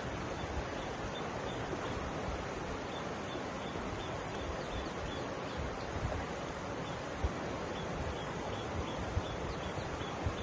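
Mountain river flowing, a steady even rush of water, with low wind buffeting on the microphone. A faint high chirp repeats about twice a second through the later part.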